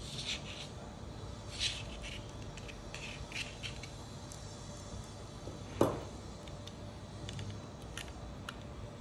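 Small parts handled on a tabletop: faint clicks of a plastic-and-metal electronic trigger unit and the rustle of its wiring as it is fitted into a metal airsoft gearbox shell, with one sharper knock about six seconds in, over steady background noise.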